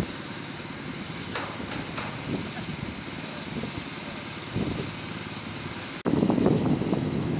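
Construction-site ambience: steady background noise with a couple of sharp knocks about a second and a half and two seconds in. About six seconds in it cuts to a louder, rough low rumble.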